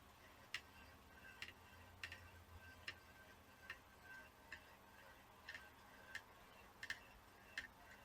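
Faint, light metallic ticks, about one a second and not quite evenly spaced, each with a short ring: the soldering iron tip touching the chip's pins during hand-soldering.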